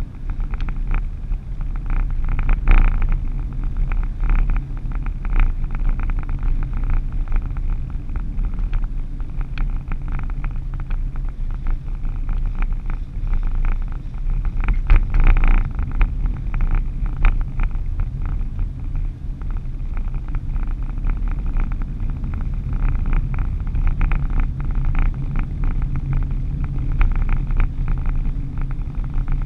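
Road and engine noise heard from inside a moving vehicle's cabin: a steady low rumble, with frequent small clicks and rattles.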